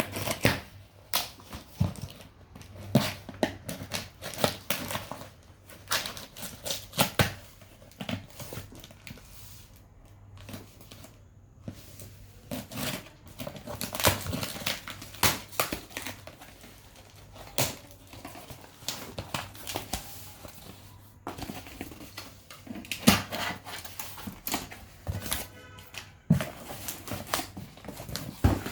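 Cardboard delivery box being opened by hand: irregular tearing, crackling and tapping of tape and packaging.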